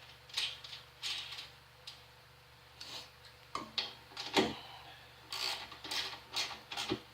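Hand tools clicking and knocking against the metal parts of a molder planer during disassembly: a string of irregular sharp clicks, busier in the second half.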